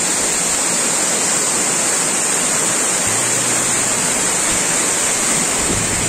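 Tall waterfall falling onto rocks and rushing down a rocky stream: a loud, steady, unbroken noise of water.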